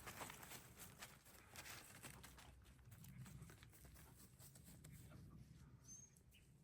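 Near silence: faint rustling and light ticks over the first couple of seconds, then a brief, faint high chirp about six seconds in.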